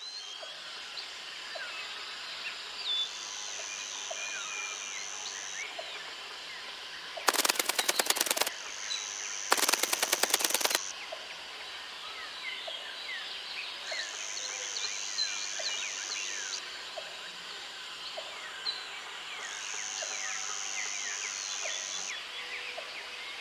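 Natural bush ambience: many small birds chirping over each other, with a high insect-like buzz that sets in and stops every few seconds. About a third of the way in, two loud rapid rattles of about a second each stand out as the loudest sounds.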